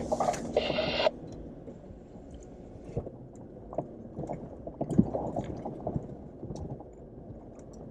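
Jeep Wrangler JL heard from inside the cabin, crawling through a muddy puddle. There is a low rumble with scattered knocks and thumps from the suspension and wheels, with mud and water squishing around the tyres. A louder burst of noise comes in the first second.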